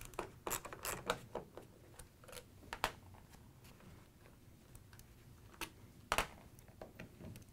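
Faint metallic clicks and scrapes of a 5/16-inch socket nut driver turning hex bolts out of a steel refrigerator door hinge plate, with sharper clicks about three seconds and about six seconds in.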